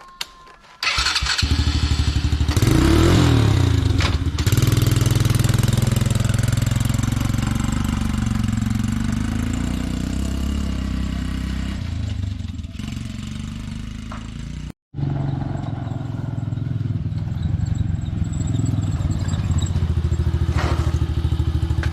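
Small 125cc ATV engine, an air-cooled single-cylinder four-stroke, running. It comes in sharply about a second in, revs up for a couple of seconds, then runs steadily, with a brief total break about two-thirds of the way through.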